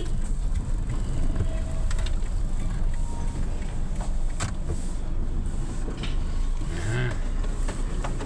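Motor vehicle driving, a steady low rumble with a few light knocks.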